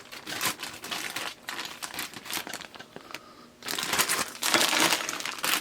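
Irregular crinkling and rustling from sewing machine parts being handled and moved about, with a short lull about three seconds in.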